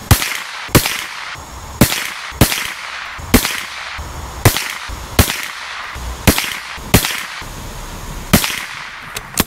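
A string of about ten .22LR rifle shots fired from a Tikka T1X bolt-action rifle, each a sharp crack, coming quickly at roughly one a second.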